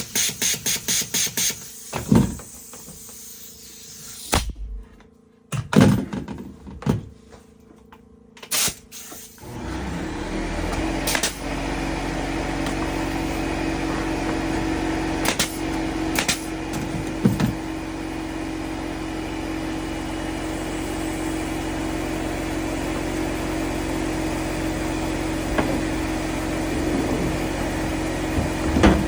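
A quick, even run of clicks and a few separate knocks, then about a third of the way in an engine starts and runs steadily at an even speed.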